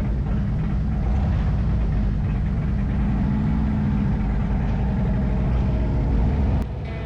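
Motorcycle engine running with a steady low rumble that swells slightly in the middle, then cuts off suddenly near the end.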